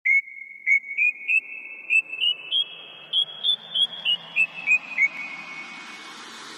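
A high, whistle-like tune of about fourteen short notes, each struck sharply and left to ring, stepping up in pitch and then back down. It stops about five seconds in, leaving a faint hiss.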